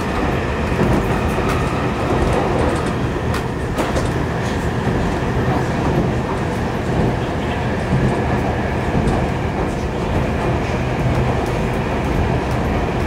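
Stockholm metro train running, heard from inside the carriage: a steady rumble of wheels and running gear, with sharp clicks here and there.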